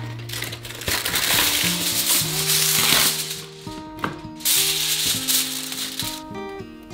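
Aluminium foil crinkling and rustling as a sheet is pulled off the roll and pressed onto a metal toaster-oven tray. It comes in two loud stretches, one about a second in and another just past the middle, over background music.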